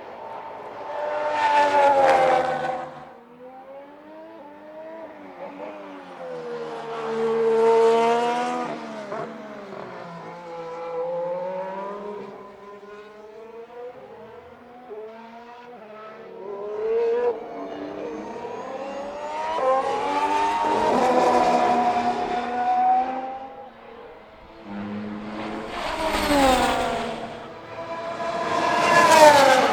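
2017 Formula 1 cars passing one after another, their 1.6-litre turbocharged V6 hybrid engines swelling loud and fading, about five times. The engine pitch climbs as a car accelerates and drops as it goes by.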